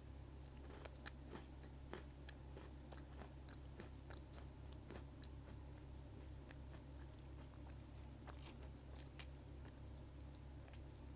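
Almond Pocky, chocolate-coated biscuit sticks with almond pieces, being chewed close to the microphone: irregular small crisp crunches, thicker in the first half, over a steady low hum.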